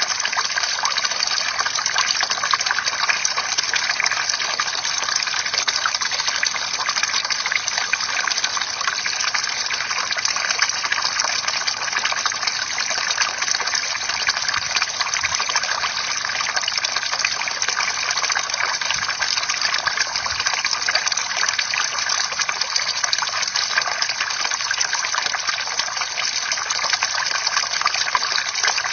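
Bamboo water fountain: a steady stream of water splashing and trickling continuously, with no break or change.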